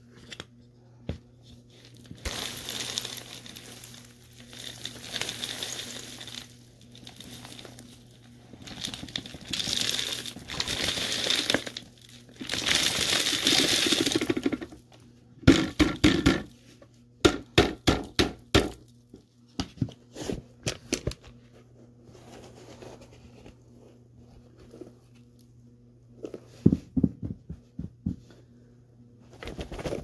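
Gritty crunching and rustling of dry dirt and debris in spells of a second or two, followed about halfway through by a quick run of sharp knocks, with a few more knocks near the end.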